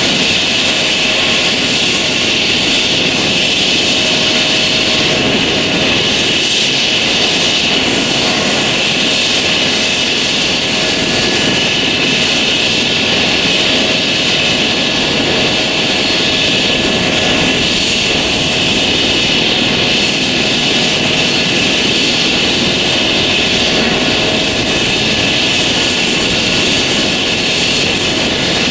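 Airbus H135 twin-turbine helicopter running steadily, its high turbine whine over the constant rush of the engines and rotor.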